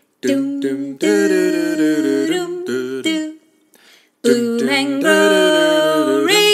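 Vocal outro jingle: short phrases of sung notes, a pause about three and a half seconds in, then held notes that slide upward near the end.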